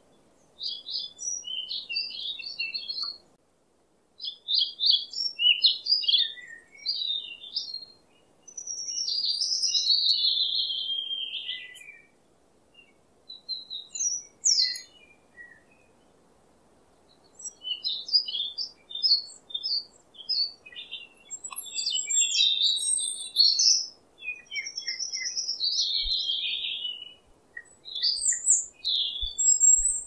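Small songbirds singing: phrases of quick chirps and trills lasting a few seconds each, with short pauses between them.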